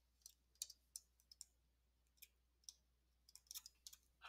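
Near silence with faint, scattered clicks of a stylus tapping on a tablet screen while handwriting is written.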